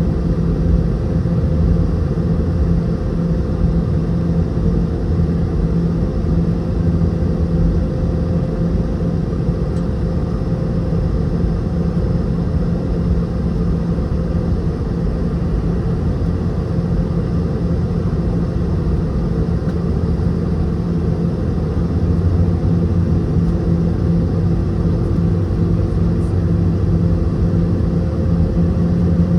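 Cabin noise of a Boeing 717-200 heard from inside, its two tail-mounted Rolls-Royce BR715 turbofans running at low power with a steady rumble and a few steady hums. The hum grows slightly stronger near the end.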